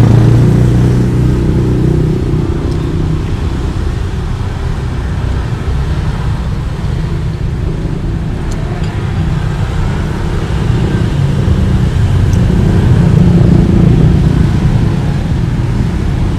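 Low rumble of passing motor-vehicle traffic, swelling louder near the start and again near the end, with a few faint ticks.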